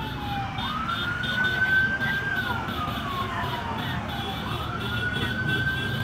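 Siren wailing slowly: its pitch rises, holds, falls, then rises again near the end, over a steady low rumble of traffic and road noise.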